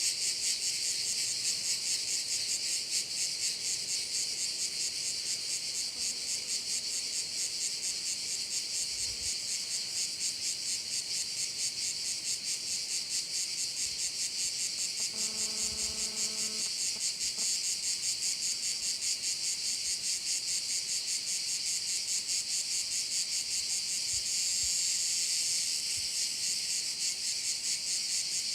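A dense chorus of cicadas buzzing steadily, a high, rapidly pulsing shrill. About halfway through, a brief low steady tone sounds once, like a distant horn.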